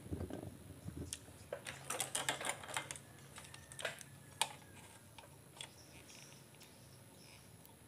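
Light clicks and rattles of wires and a multimeter test lead being handled, a quick flurry of them about two seconds in, then a few scattered clicks.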